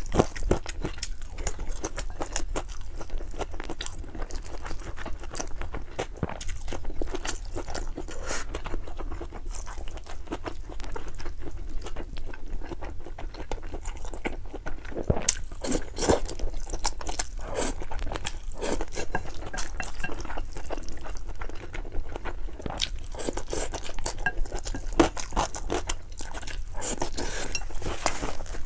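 A person eating noodles close to the microphone, with continuous chewing made up of many small wet clicks and crunches.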